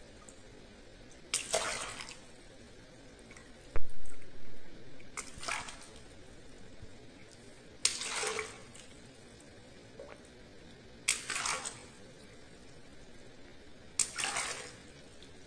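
Small latex water balloons pricked with a pin one after another. Each bursts with a sharp pop, followed by a short splash of water pouring out over the hands. There are six bursts a few seconds apart, the second one the loudest.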